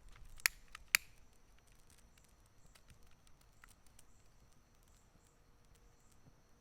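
Two sharp clicks about half a second and a second in, then faint scattered crackles, over a steady high trill of night insects.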